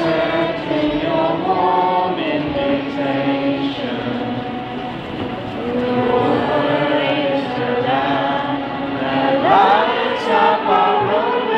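A huge stadium crowd singing a hymn together in slow, held notes.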